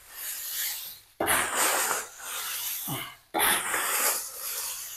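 Dried red chillies and roasted whole spices rustling and crackling as they are scooped and tossed by hand in a large plastic basin: repeated sudden rustling bursts, each fading over about a second.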